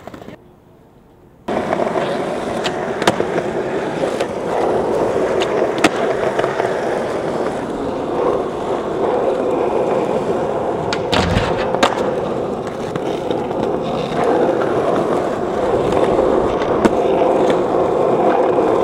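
Skateboard wheels rolling over rough street asphalt: a steady rolling rumble that starts about a second and a half in. Scattered sharp clacks run through it, with a heavier knock around the middle.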